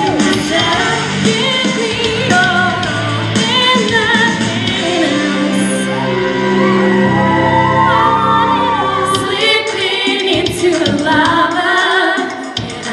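A group of women singing a pop song together, several voices holding and bending sustained notes.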